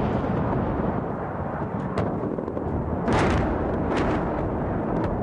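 Bomb explosions during an air strike: a continuous heavy rumble with sharp blasts about two, three, four and five seconds in, the one just after three seconds the loudest.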